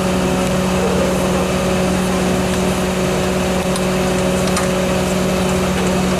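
Fire truck's diesel engine running at steady revs, a constant low hum that does not rise or fall. A few faint clicks come through over it.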